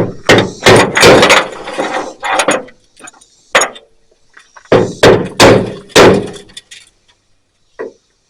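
Hammer striking a center punch on the truck's sheet-metal hood, a series of sharp metallic knocks in two bursts with a pause between, marking the hole centres so the drill bit doesn't walk.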